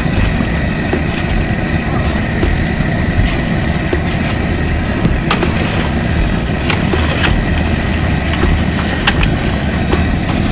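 Propane jet burner running under a crawfish boil pot, a steady low rumble, with a metal paddle clicking now and then against the aluminum pot and basket as the crawfish are stirred into the boiling water.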